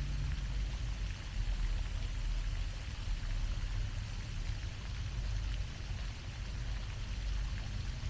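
Pond fountain's jet of water falling back onto the pond, a steady splashing hiss, over a low rumble.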